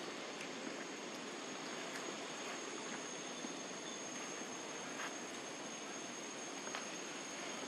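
Steady outdoor background hiss with a thin, high, continuous whine over it and a few faint clicks.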